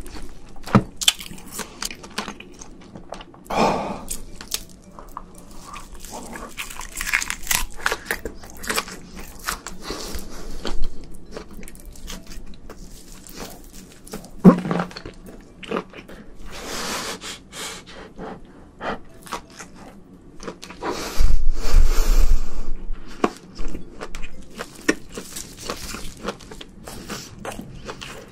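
Close-miked eating sounds of a man chewing shrimp: wet chewing, smacking and small clicks, irregular throughout. About three-quarters through there is a louder burst of about two seconds with a low rumble.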